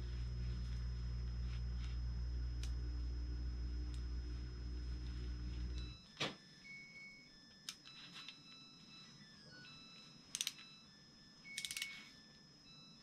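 A steady, evenly pitched low machine hum that cuts off suddenly about six seconds in. After it only a few light clicks and short high tones remain.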